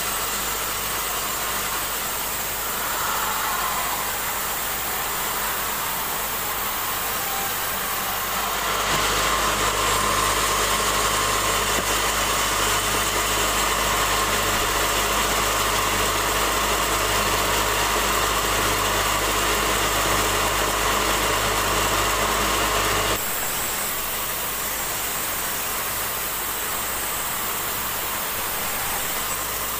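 Band sawmill running and sawing a log. It gives a steady machine noise, louder with a steady low hum from about nine seconds in until about seven seconds before the end.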